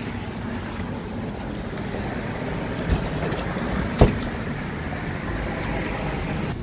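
Steady rumble of road traffic, with two short knocks about three and four seconds in, the second one louder.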